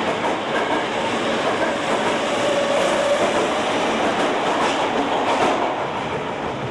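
Osaka Metro Midosuji Line subway train pulling out of the station, its wheels clattering and its cars rushing past close by. The noise fades as the last car clears near the end.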